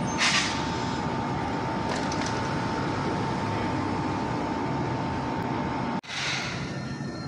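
Toei 8800-series electric tram easing slowly up to the platform, with a steady whine and a brief hiss about a quarter second in. The sound cuts off abruptly about six seconds in and is followed by a short burst of noise.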